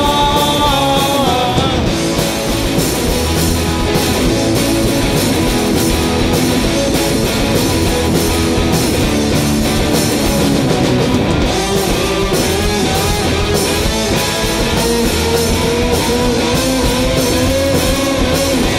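Live rock band playing an instrumental stretch: electric guitars, bass guitar and drums together at a steady beat.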